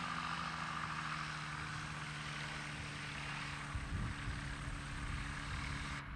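Steady drone of a small propeller aircraft's engine running, with a brief low rumble about four seconds in.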